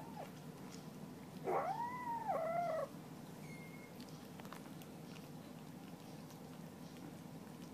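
A cat's drawn-out meow about a second and a half in, rising then falling in pitch and breaking into a second, shorter part, over a faint steady background hum.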